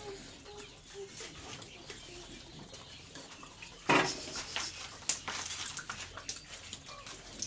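Pigs eating: irregular chewing and smacking clicks, with a loud sudden clatter about four seconds in. A few short, soft, dove-like cooing notes sound in the first second.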